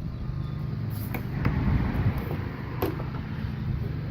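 Steady low mechanical hum, with a few light clicks.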